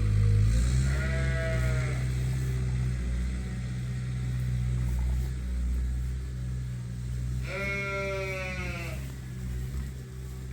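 A sheep bleats twice, each call lasting about a second, once about a second in and again about two-thirds of the way through, over a steady low hum.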